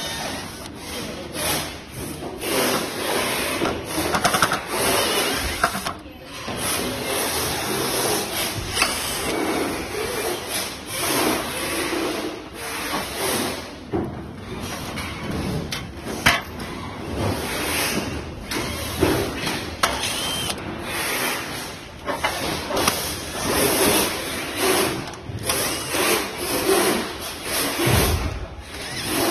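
Cordless drill-driver running in many short bursts, driving screws into a sheet-metal housing, with handling knocks and rattles between bursts.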